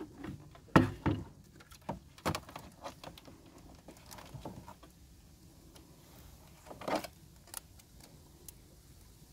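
Irregular knocks, clatters and short scrapes from handling a string-tied sea crab and a plastic bucket in a small boat, the sharpest knock about a second in.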